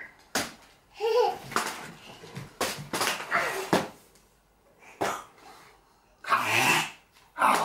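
A toddler laughing and babbling, with several short sharp knocks from toy swords striking each other. A louder burst of laughter or a shout comes near the end.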